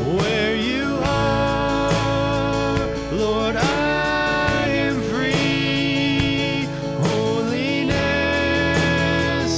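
Praise band music: guitar and other instruments playing a slow worship song, with a sung melody over it.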